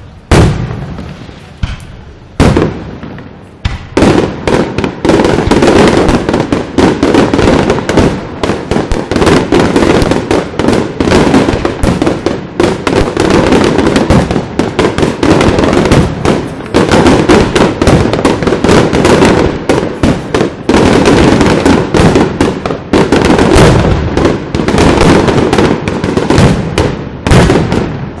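Aerial firework shells bursting. A few separate bangs come first, then from about four seconds in a dense, unbroken barrage of rapid explosions.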